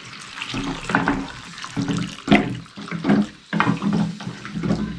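Water poured in a stream from an aluminium kettle into a wok of thick besan dal, splashing into the mixture while it is stirred.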